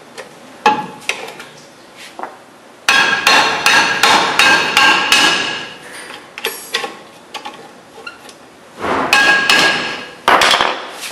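Small hammer striking a rusted, seized VW Variant brake drum in quick runs of blows, the drum ringing after each hit, with a screwdriver wedged in to lever it off: working loose a drum stuck fast to its brake linings. A few single taps come first, then a fast run of blows after about three seconds and another near the end.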